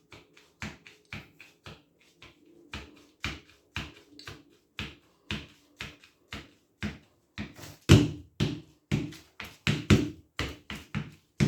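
Footsteps at a steady walking pace, about two steps a second, growing louder in the second half.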